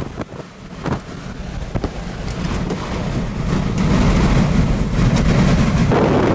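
Strong wind buffeting the microphone: a low, rumbling rush that builds over the first few seconds and then holds loud.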